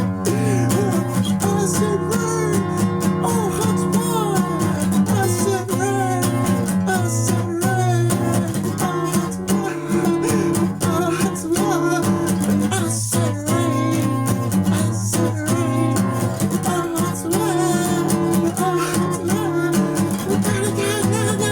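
Loud, steady punk rock music led by guitar, with bending, wavering pitched lines over the chords.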